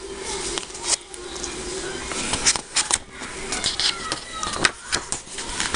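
Sheets of printer paper rustling and crackling as the pages of a letter are handled and flipped, in irregular short crackles.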